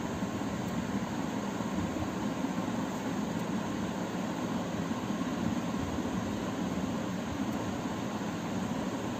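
Steady low droning background noise that holds evenly throughout, with no distinct strokes, clicks or voices in it.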